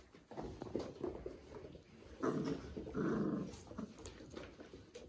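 Month-old Weimaraner puppies play-growling as they wrestle, with two louder rough growls a little past halfway and lighter scuffling between them.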